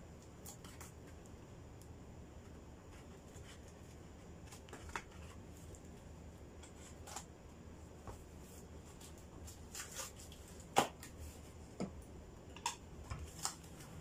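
Scattered light clicks, taps and rustles of a cardboard box and its wrapping being handled, busier in the second half, with one sharper tap about three-quarters of the way through.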